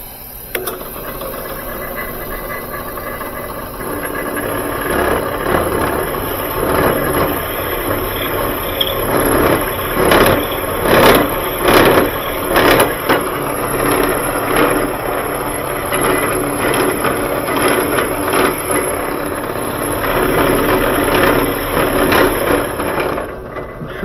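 Drill press running while a tapered bit cuts into the inside of a hand-held brass tube, tapering it into a seal-seating profile. The running gets louder about four seconds in, and the cutting comes in several loud surges around ten to thirteen seconds in.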